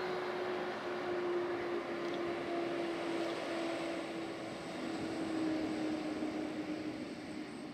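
Boeing 767's jet engines running as the airliner rolls along the runway after landing: a steady engine noise with one hum that slowly falls in pitch, growing quieter near the end.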